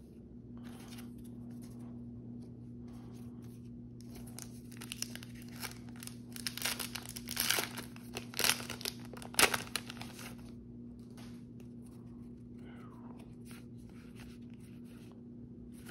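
Foil Yu-Gi-Oh booster pack wrapper being torn open and crinkled in the hands: a run of tearing and crinkling, loudest between about six and ten seconds in.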